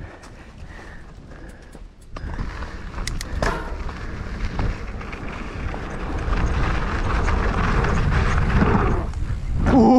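Mountain bike rolling over a loose dirt trail: tyre noise on loose ground and the bike rattling. It is quieter for about the first two seconds, then grows louder, with a few sharp clicks around three seconds in.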